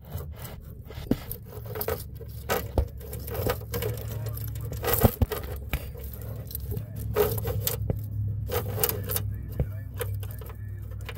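Irregular metallic clinks, knocks and scrapes of metal parts and hand tools being handled, over a steady low hum.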